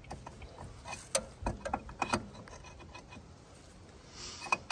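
Irregular light clicks and taps from hand tools and hardware being handled on a pickup's front suspension, with a brief soft hiss near the end.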